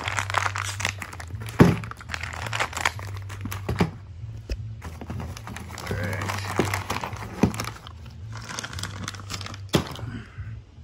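Clear plastic bag crinkling and rustling as it is pulled and torn open, with scattered sharp snaps and clicks, the loudest about one and a half seconds in. A low steady hum runs underneath.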